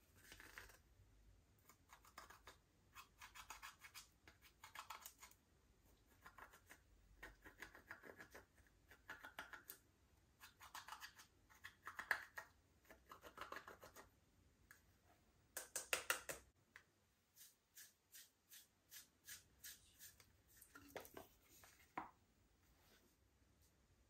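Hands working slime: faint crackly squishing and scraping strokes, then a run of short pops at about two a second near the end.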